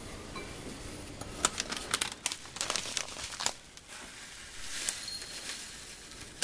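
Crinkling and rustling of a plastic panko breadcrumb bag being handled as crumbs are poured into a bowl, in a dense run of sharp crackles for a couple of seconds and a few more a little later.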